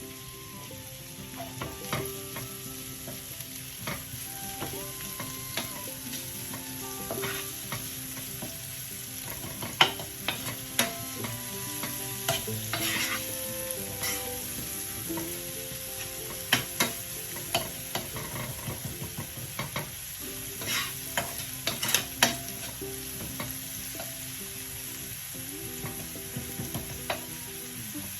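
Celery and green chili sizzling in hot oil in a frying pan while being stirred with a utensil, giving a steady frying hiss broken by sharp scrapes and knocks of the utensil against the pan.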